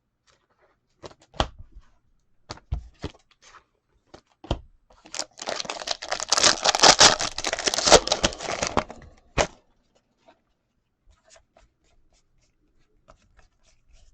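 A few light taps and clicks, then a foil trading-card pack wrapper torn open, crinkling and ripping for about four seconds before a last click.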